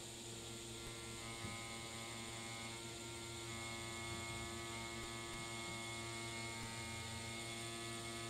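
Rotary pen-style tattoo machine with a 7-round liner needle running steadily while lining fake skin with a light touch: a steady electric hum made of several even tones.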